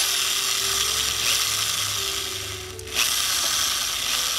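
Electric drill running at slow speed, turning a floating brake rotor bobbin with a steady whirring hiss; it stops briefly about three seconds in and starts again. The bobbins are being worked loose of corrosion and brake dust, the cause of a pulsing front brake lever.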